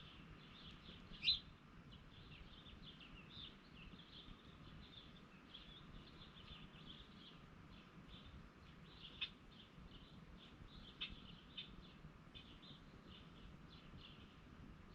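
Birds chirping in many short, faint, repeated notes, with one louder chirp about a second in and a couple of sharp clicks later on.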